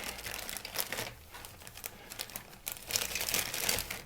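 Thin plastic bags crinkling and rustling as plastic model-kit sprues are pushed back into them, in irregular bunches of crackles with a quieter spell in the middle.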